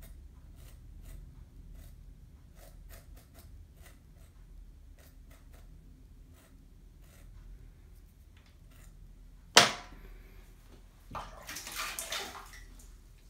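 Light, irregular scraping strokes of a hand tool on the cut rim of a leather-hard clay bowl, softening a sharp edge. About nine and a half seconds in comes a sharp knock, then about a second and a half of louder scraping as the bowl is turned in its mold.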